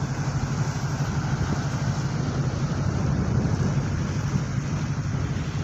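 A tugboat's diesel engine running steadily, giving a low, even rumble, under a wash of wind and water noise.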